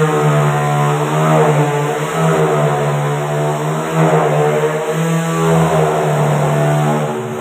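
Corded handheld power tool running at speed against the foot of a wooden door frame, a steady motor whine, starting to wind down at the very end.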